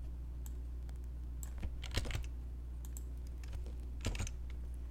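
Computer keyboard being typed on: a handful of separate keystrokes, scattered unevenly, over a low steady hum.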